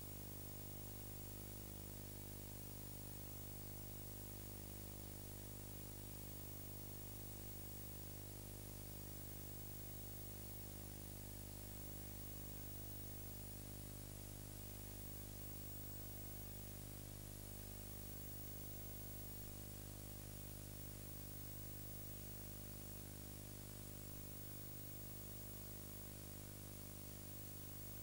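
Steady electrical hum with a constant hiss: low mains hum with many overtones, the background noise of an old tape transfer, with no other sound.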